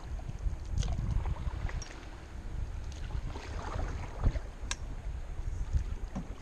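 Canoe paddling: the paddle dipping and swishing through lake water, with wind rumbling on the microphone and a couple of sharp knocks.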